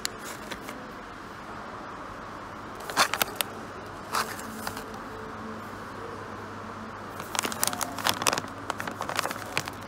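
Plastic dog-treat pouches crinkling as they are handled on a shelf, in short bursts of crackling about three and four seconds in and a longer run in the last two and a half seconds, over a steady background hum.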